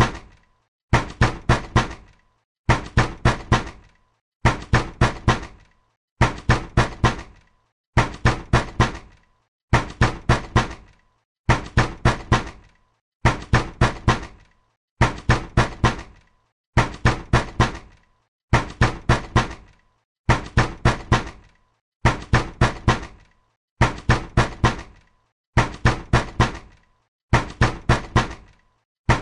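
Hard, angry knocking on a door in bursts of about four quick blows, one burst roughly every two seconds, the same pattern repeating evenly.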